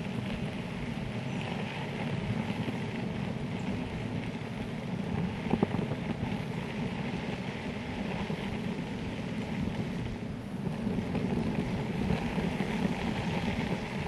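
Electric longboard's wheels rolling over a gravel trail: a steady rumble, with wind on the microphone. A single sharp knock about five and a half seconds in.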